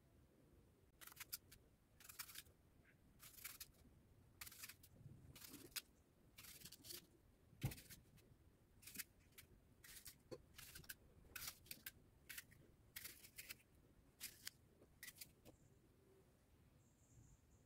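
Small knife slicing through a fresh, crisp apple held in the hand: a long run of short, crisp cuts, about one or two a second, with one soft thump about eight seconds in.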